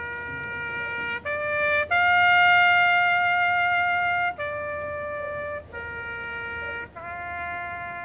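A brass horn playing a slow phrase of six long held notes with short breaks between them, stepping up and down among a few pitches; the highest note, held about two seconds in the middle, is the loudest.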